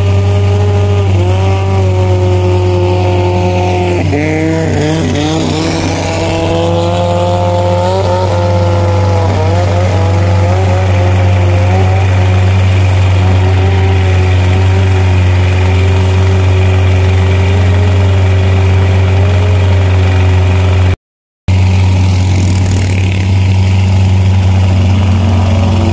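Longtail boat engines running at speed, heard from aboard a longtail boat: a steady deep drone, with a higher engine note that swoops down and back up between about 4 and 10 seconds in as another racing longtail passes, over the hiss of spray. The sound cuts out for half a second about 21 seconds in.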